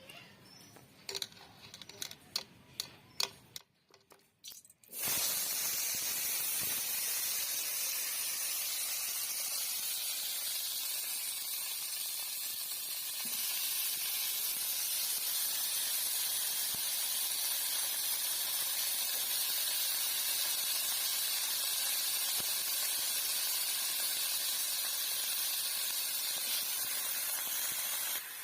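A few light clinks and knocks. Then, about five seconds in, a steady hiss starts suddenly: food sizzling as it fries in hot oil in a pan.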